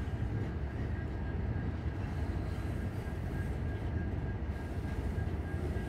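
Freight cars rolling across a steel truss railroad bridge overhead: a steady low rumble of wheels on rail, with a faint high whine held throughout.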